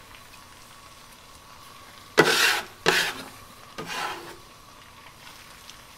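Metal bench scraper scraping across a wooden cutting board, three short scrapes with the first the loudest, gathering up chopped onion.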